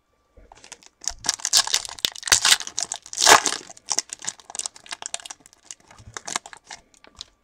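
Foil wrapper of a football trading-card pack crinkling as the pack is opened by hand. A dense stretch of crackling starts about a second in and is loudest near the middle, then thins to lighter, scattered crinkles.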